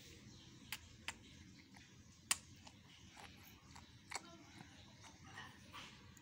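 Quiet room tone broken by four short, sharp mouth clicks, the loudest about two seconds in: a baby's lips smacking as it chews noodles.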